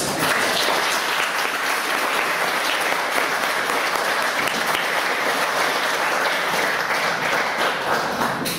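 Audience applause: dense, steady clapping that starts all at once and eases off slightly near the end.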